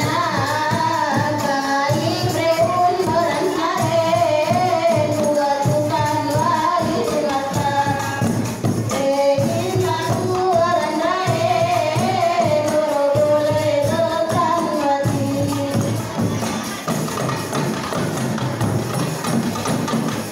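Women's qasidah singing: a woman sings a wavering melody through a microphone over hand frame drums (rebana) beaten in a steady rhythm. The voice drops out about fifteen seconds in, leaving the drums playing on.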